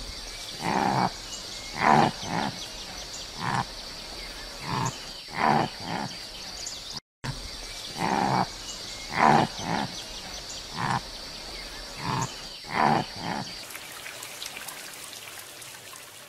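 Red deer hinds calling: short calls at irregular intervals, about one a second, with a brief drop-out about seven seconds in. A faint steady high hiss lies under them and stops near the end.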